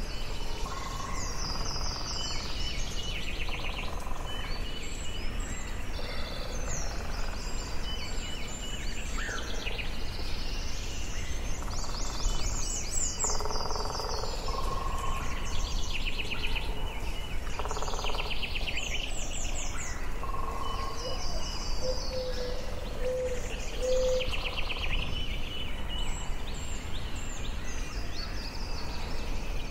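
Forest ambience: several songbirds singing and calling, with overlapping trills and short repeated phrases, over a steady low background noise.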